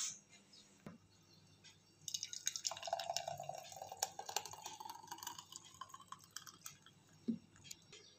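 Thick fruit smoothie poured from a blender jar into a glass: wet gurgling and dripping that begins about two seconds in and tapers off, with a faint tone that rises as the glass fills. A soft knock near the end.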